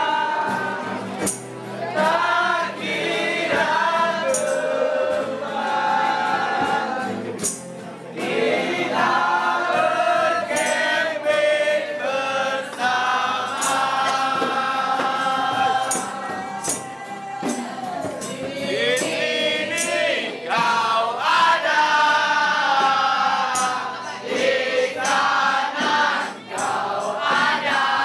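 Many voices singing together in chorus, with sharp percussive hits scattered through it.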